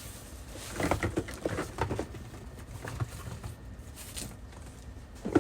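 Light taps, knocks and rustling of perfume boxes and bottles being handled, busiest about one to two seconds in, with a sharper knock near the end.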